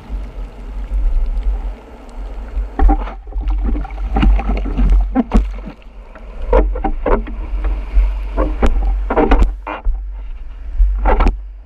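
Ocean water splashing and churning against the camera's microphone in the surf: a steady low rumble with irregular sharp splashes and knocks.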